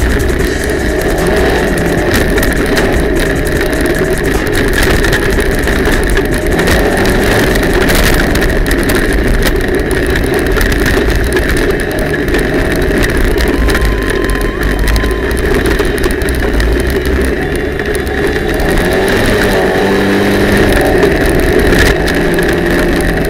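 Polaris RZR side-by-side's engine running steadily while driving a rough trail, its pitch wavering slightly with the throttle.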